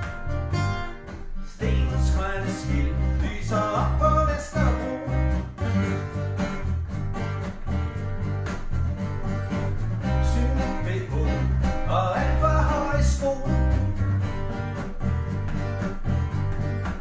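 A small acoustic band playing: a steel-string acoustic guitar strumming chords over a bass guitar and a second guitar, with a country/bluegrass feel. The full band comes in strongly about a second and a half in after a lighter opening.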